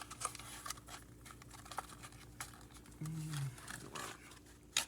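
Plastic blister packaging crinkling and clicking in irregular small snaps as a fishing lure is pried out of it, with a brief low hum from the person about three seconds in.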